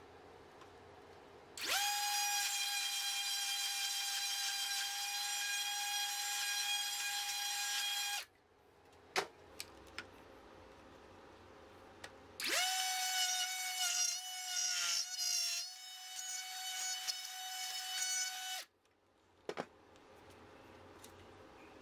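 Makita trim router in a mortising jig running twice, about six seconds each time, with a steady high whine that starts and stops abruptly. During the second run the pitch wavers for a couple of seconds as the bit cuts a mortise. A sharp click follows each run.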